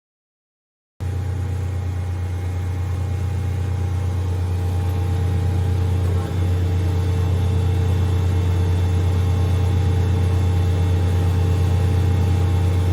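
Marvel 81A/10 vertical automatic bandsaw running, a loud steady machine hum that cuts in abruptly about a second in.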